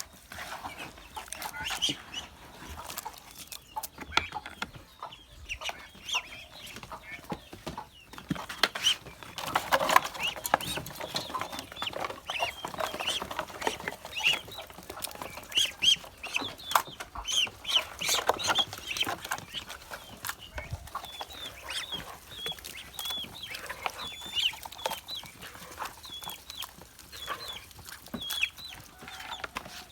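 A flock of farm poultry calling: many short, high peeps and clucks in quick succession, busiest and loudest through the middle.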